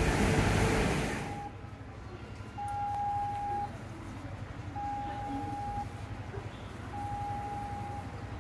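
Electronic beeper sounding one steady tone about a second long, repeating roughly every two seconds over a low steady hum. A loud rushing noise cuts off about a second in.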